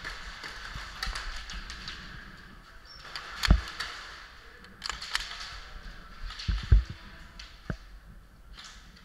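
Irregular knocks and thumps of a body-mounted action camera being jostled and rattling as the player moves, the loudest about three and a half seconds in and just before seven seconds in.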